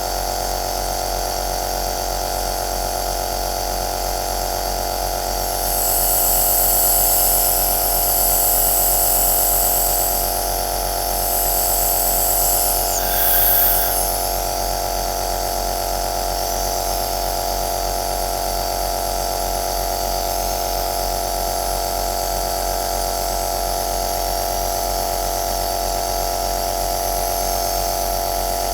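Compressor nebulizer running steadily: a small motor humming with a steady airy hiss. From about six to fourteen seconds in, a louder high hiss comes and goes in three stretches, then the steady running continues.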